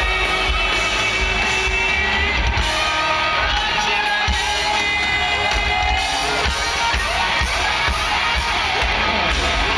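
Live hard rock band playing loudly through an arena PA: electric guitars, bass guitar and drums, recorded from within the crowd, with crowd cheering mixed in.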